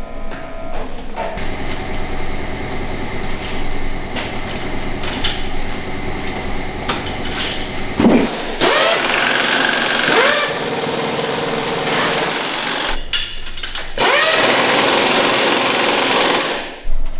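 Factory machinery running in a cultured-marble casting shop: a steady mechanical hum at first, then a loud hissing rush from about eight seconds in, rising and falling in pitch, which cuts out shortly before the end.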